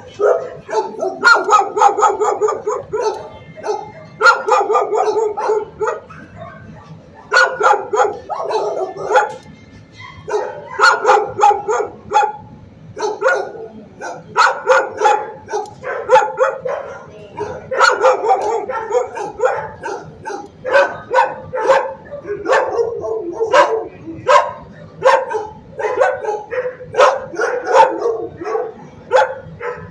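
Dogs barking in a shelter kennel: rapid volleys of loud barks with a few brief lulls.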